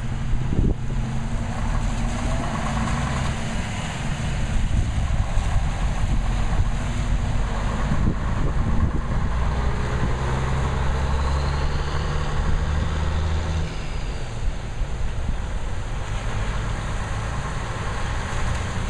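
1964 Mack B61 truck's Thermodyne diesel engine running as the tractor unit pulls through an intersection and drives off: a steady low drone, strongest as it passes close about ten seconds in.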